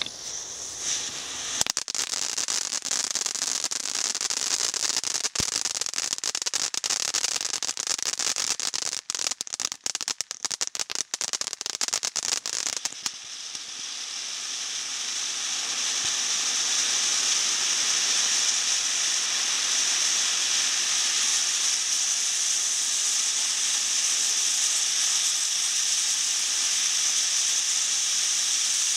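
Emperor's Tattoo ground fountain firework burning: dense crackling with many sharp pops for about the first thirteen seconds, then a steady loud hiss as it sprays a column of sparks.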